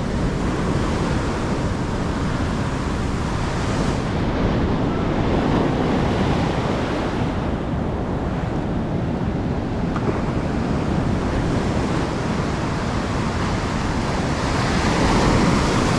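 Heavy surf breaking and washing up the beach, a steady rush that swells a little now and then, with wind buffeting the microphone.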